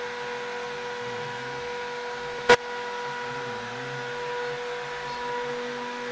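CNC router engraving: the spindle's steady high whine, with the stepper motors moving the gantry rising and falling in pitch beneath it. One sharp click about two and a half seconds in.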